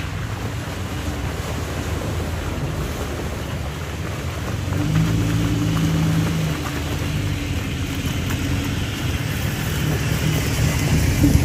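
Jeep engine running while driving an off-road trail, over a steady rumble of road noise. The engine note strengthens for a moment about five seconds in.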